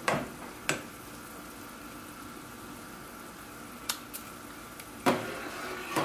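Metal mesh skimmer clinking against a stainless steel soup pot and a plate while solids are lifted out of simmering soup: a few sharp taps scattered through, with the loudest clatter about five seconds in, over a steady low background hiss.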